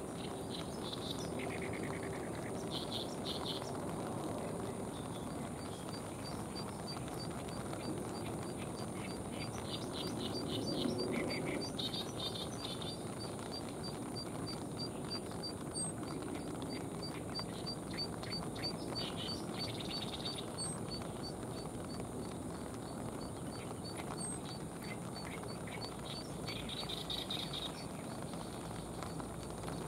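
Open-air ambience of a steady background hiss, with small birds chirping in short high bursts now and then. A fast, even high ticking, about two or three ticks a second, starts a few seconds in and keeps on. A low rumble swells briefly near the middle.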